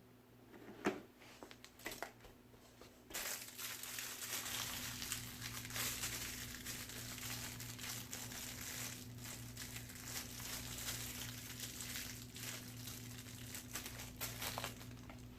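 Plastic packaging crinkling and rustling as it is handled, starting about three seconds in after a few light clicks and going on for about twelve seconds.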